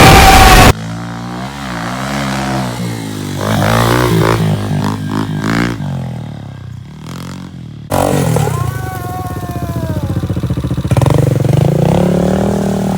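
Off-road vehicle engines revving, rising and falling in pitch as they ride the dirt track, opening with a very loud, short rushing blast. About eight seconds in the sound changes abruptly to another engine pulling through its revs.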